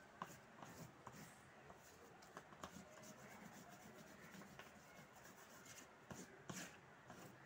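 Faint strokes and light taps of a paintbrush on paper, with a few slightly louder strokes about six seconds in.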